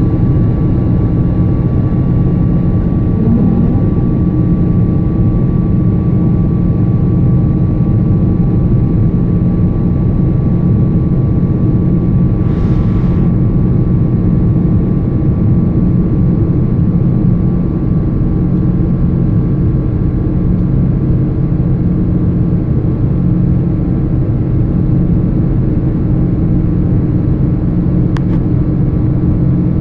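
Steady drone of a Boeing 777-200ER's jet engines and airflow heard inside the cabin during the climb after takeoff, with a steady low hum throughout. A brief hiss comes about halfway through, and a faint click near the end.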